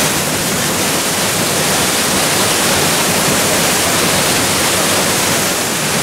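Waterfall plunging down a rock face into a pool: a steady, loud rush of falling water.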